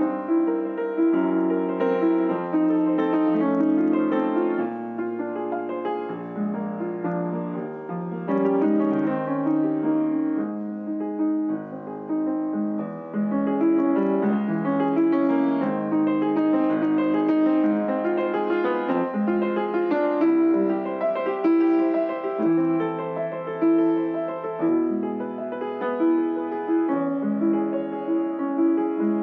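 Solo piano music: repeated chords over a moving bass line.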